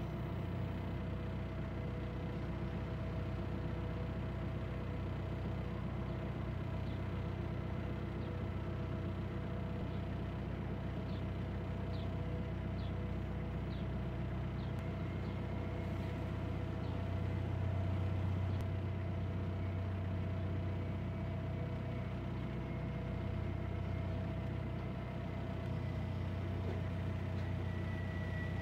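Narrowboat's inboard diesel engine running steadily at cruising speed: an even, low engine hum that swells slightly about two-thirds of the way through.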